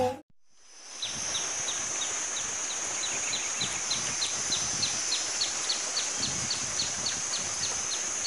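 Music cuts off at the start, then outdoor wildlife ambience sets in: a steady high-pitched drone with a short falling chirp repeated about three times a second.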